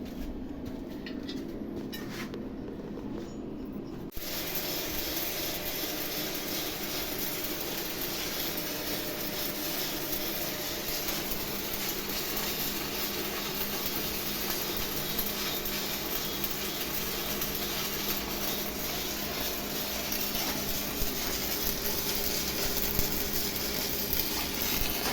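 A welding arc burning with a steady crackling sizzle. It strikes suddenly about four seconds in and cuts off abruptly near the end, under a faint welding-machine hum.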